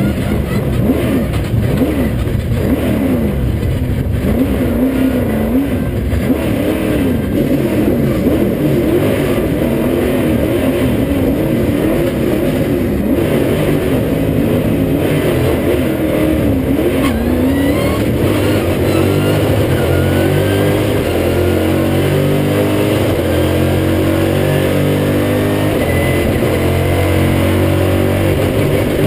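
A Stock Car Brasil race car's V8 engine heard from inside the cockpit. For about the first half the revs rise and fall unevenly; from a little past halfway the pitch climbs again and again in steps as the car accelerates hard through the gears.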